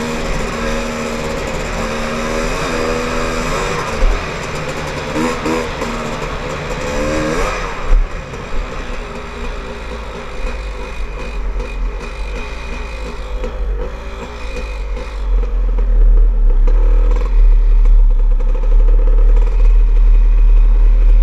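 Dirt bike engine under way, its pitch climbing and dropping with throttle and gear changes for the first several seconds. About eight seconds in it drops lower and quieter as the bike slows. A heavy low rumble grows loud near the end.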